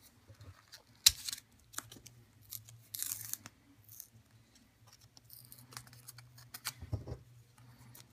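A baseball rip card's card stock being torn and peeled open by hand: scattered short rips, crackles and clicks of paper and card, with one longer tear about three seconds in.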